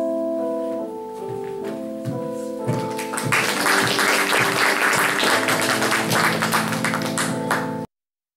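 Keyboard music with long held notes; from about three seconds in, a crowd clapping joins it, and both cut off abruptly near the end.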